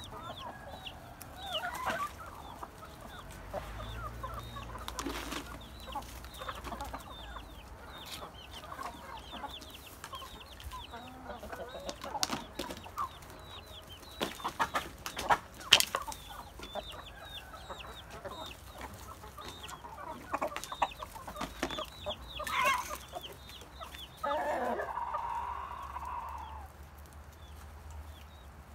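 A flock of chickens clucking as they peck at fresh greens. Short high chirps repeat throughout, a few sharp knocks come midway, and one longer, louder call comes near the end.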